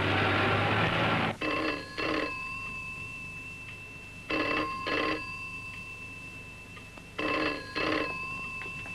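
A car engine runs for about the first second and cuts off. Then a telephone bell rings in three double rings, spaced about three seconds apart, with the bell tone ringing on between them.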